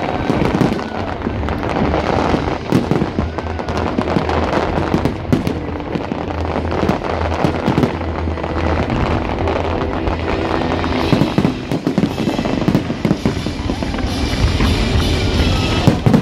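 Fireworks display: a dense run of bangs and crackling from bursting shells, with music playing underneath.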